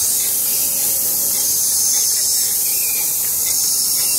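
Small steam locomotive venting steam in a steady, high hiss.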